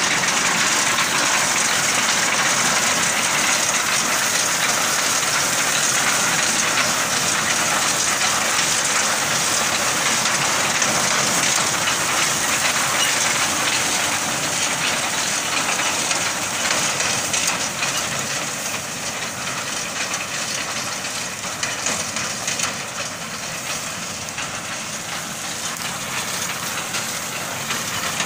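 Tractor-mounted ABS wheat reaper cutting standing wheat: its cutter bar and conveyor clattering rapidly over the tractor's engine, a loud, steady mechanical din that eases a little in the second half.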